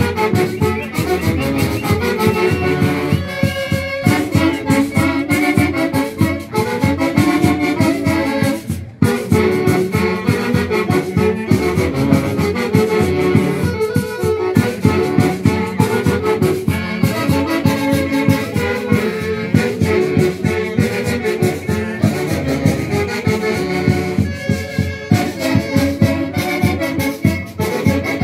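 A Peruvian orquesta parrandera playing a dance tune: a saxophone-led wind band over a steady beat, with a brief break about nine seconds in.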